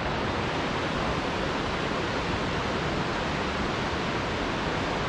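Steady rushing of the Baspa, a fast Himalayan mountain river running as white water, an even, unbroken roar of water.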